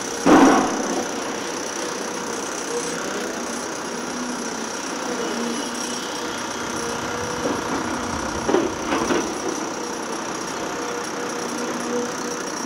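Construction machinery running steadily on a building site, with a loud knock just after the start and two smaller knocks about two-thirds of the way through.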